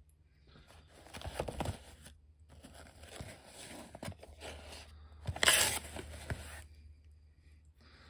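Crumpled packing paper rustling and cardboard carton flaps scraping as small lighter boxes are lifted out of a shipping box, with a few light knocks. The loudest rustle comes a little past halfway.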